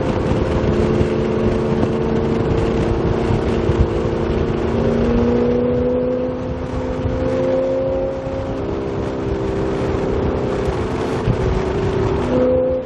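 Chevrolet Corvette Z06's V8 through an AWE axle-back exhaust, cruising at low, steady revs with a steady drone that rises slightly in pitch midway, heard from inside the cabin with the windows down.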